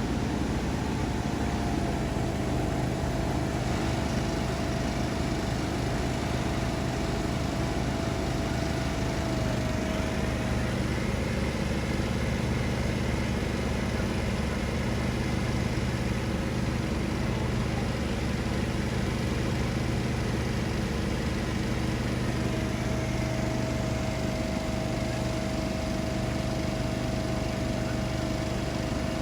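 Small engine of portable dewatering equipment running steadily at a constant speed, a low hum with a faint higher whine that drops out about ten seconds in and returns after about twenty-two seconds.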